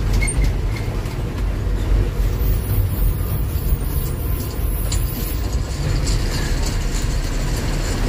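Diesel lorry driving along the road, heard from inside the cab: a steady low engine rumble with road noise and occasional small rattles.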